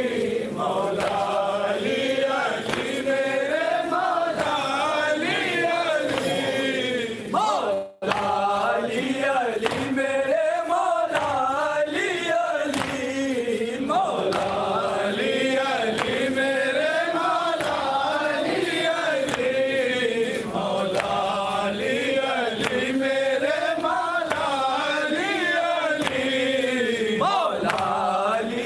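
Men's voices chanting an Urdu noha, a mourning chant for Imam Ali, in long melodic phrases that rise and fall without a break. The sound drops out briefly about eight seconds in.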